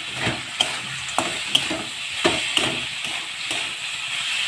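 Spatula stirring a dry potato-and-pumpkin filling in a kadai over a steady sizzle, with several sharp scrapes and knocks against the pan.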